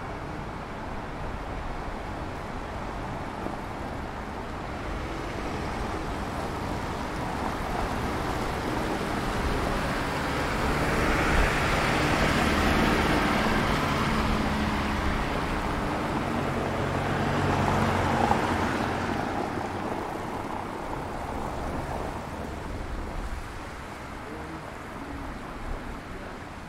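Street traffic passing close by: engine hum and tyre noise swell as a vehicle goes past about halfway through, with another passing a few seconds later.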